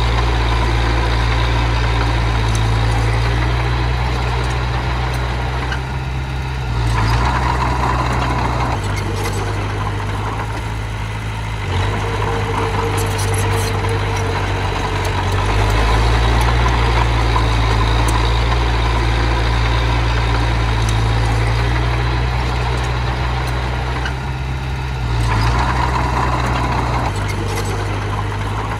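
Diesel engine of small earthmoving machinery running steadily. Its note shifts several times as the load or throttle changes.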